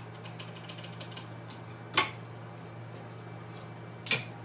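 A few sharp clacks as one-handed bar clamps are released and taken off the wooden jig. The loudest comes about two seconds in and a double one near the end, over a steady low hum.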